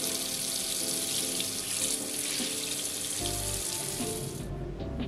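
Water running from a bathroom tap over a face sponge into the sink, a steady hiss that cuts off about four and a half seconds in. Background music plays underneath.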